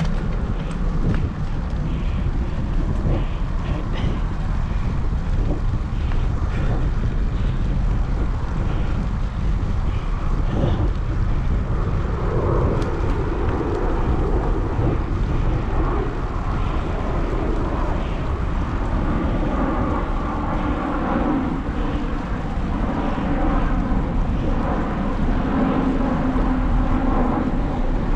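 Wind rumbling over the microphone of a handlebar camera on a moving bicycle. A steady multi-tone hum joins in about twelve seconds in and gets stronger near the end.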